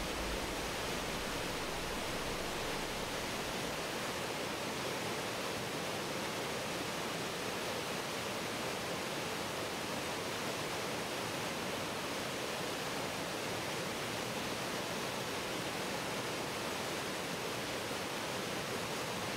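Churning whitewater rushing steadily, an even, unbroken hiss of turbulent water.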